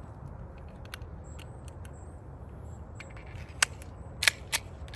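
Small metallic clicks and clacks of a Glock 43 being handled to clear a jam, its slide worked by hand, with a few sharper clicks about three and a half to four and a half seconds in. The pistol is failing to feed with a cheap aftermarket threaded barrel.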